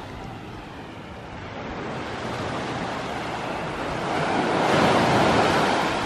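Small sea waves washing onto a sandy beach, a steady hiss of surf that swells as one wave breaks and runs up the sand about four to five seconds in, then eases off.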